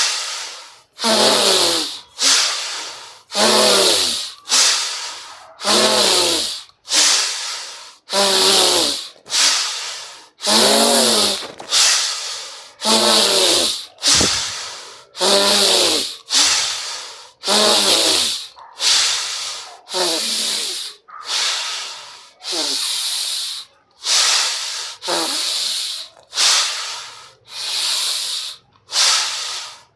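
A person doing fast, forceful pranayama breaths through a constricted throat, about one every second and a half. Each breath is a loud hissing rush of air, and many carry a falling throaty tone.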